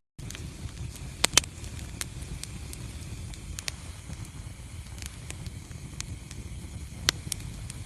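Wood fire burning in a fireplace: scattered sharp crackles and pops over a low steady rumble, with two loud pops just over a second in and another near the end.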